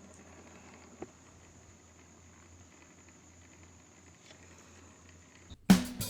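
Faint room tone with a steady low hum and one soft click about a second in. Near the end it cuts out, and guitar music starts abruptly.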